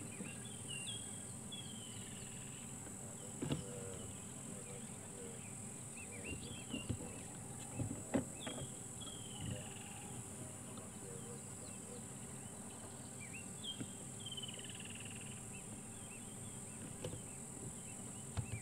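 Bush ambience: a steady high-pitched insect drone, with a bird repeatedly calling in short falling whistles and a few sharp clicks.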